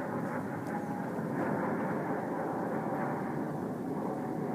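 Steady rushing background noise with no distinct events; it holds an even level throughout.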